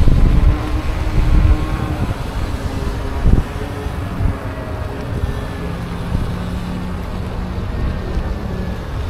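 Wind rushing over the microphone and road rumble while riding an electric unicycle, gustiest in the first couple of seconds, with a faint steady whine that drops in pitch later and a single thump about three seconds in.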